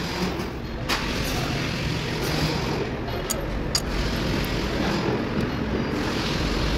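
A few sharp metallic clicks of a ring wrench and hex key on a diesel engine's valve rocker arm adjusting screw and locknut during valve lash adjustment: one about a second in, then two close together a couple of seconds later, over a steady low background rumble.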